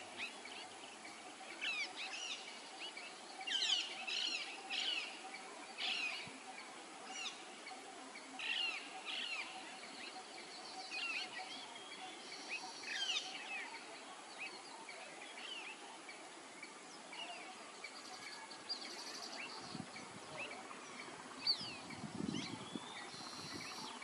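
Small birds chirping in woodland: many short, high, quickly sweeping chirps and calls, scattered and overlapping, over a faint steady hum.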